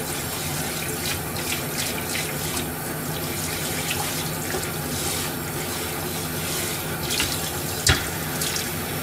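Tap water running steadily into a stainless steel kitchen sink while a bowl is rinsed by hand, with small clinks of dishware and one sharp knock of a dish near the end.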